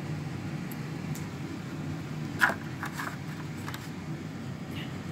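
Small plastic clicks and taps from handling a pH test kit: the reagent dropper bottle set down and the sample test tube capped and picked up to mix. One sharp click about two and a half seconds in is the loudest, followed by a few lighter ones, over a steady low hum.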